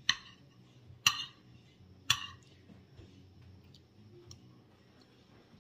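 Metal spoon clinking against a plate while scooping rice: three sharp clinks about a second apart, followed by a few faint taps.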